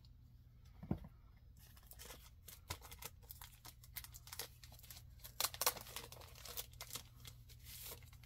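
Comic books being shuffled and flipped through by hand: scattered paper rustling and crinkling, busiest in the second half, with a soft knock about a second in.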